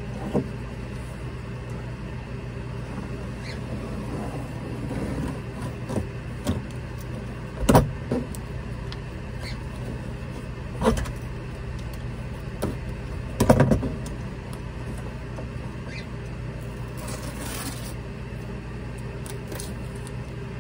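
Scattered knocks and crinkles of adhesive contact paper being handled and pressed onto the inside wall of a cabinet, the loudest knocks about 8 and 13 seconds in, over a steady low hum.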